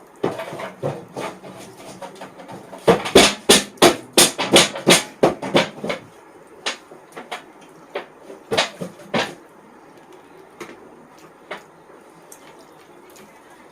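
A drum (dhol) beaten by a small child: scattered knocks, then a fast run of about a dozen loud strikes from about three to six seconds in, then a few sparser single hits.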